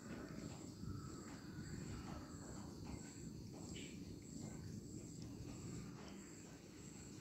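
A cat chewing crunchy biscuits, with short crunching clicks about every half second, over a high, steady pulsing chirp in the background.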